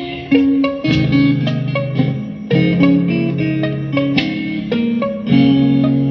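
Slow guitar music: plucked notes and chords ringing over held low bass notes, with fresh notes struck every second or so.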